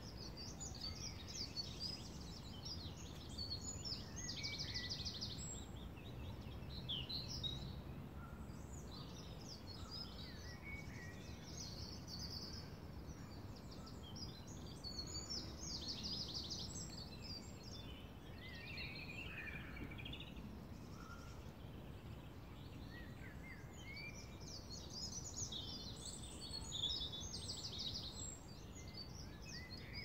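Woodland songbirds singing in short, repeated phrases and trills, with a few phrases coming close together now and then, over a steady low background noise.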